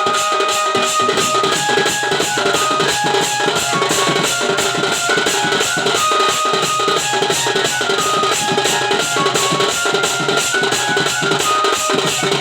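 Folk band music with a fast, even drum beat and a single melody line of held notes stepping up and down.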